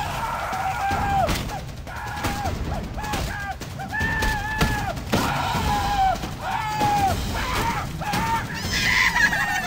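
Axe blows striking a tree trunk with sharp knocks, mixed with a long run of short, high-pitched, cartoonish voice cries, many falling off at the end.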